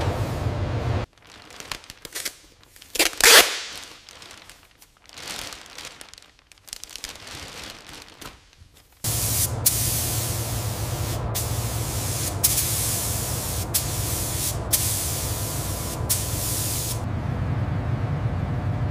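Gravity-feed paint spray gun hissing as it sprays primer. The hiss comes in irregular bursts at first. From about halfway it runs steadily, broken by short pauses as the trigger is released, and it stops near the end, over a steady low hum.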